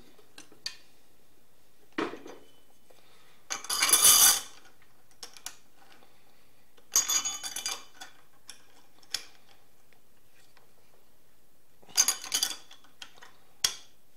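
Steel parts of a homemade bench vise clinking and rattling against each other as the long threaded drive screw is handled and fitted into the vise body. Several separate bouts of metal clatter, the longest and loudest about four seconds in, with a sharp knock near the end.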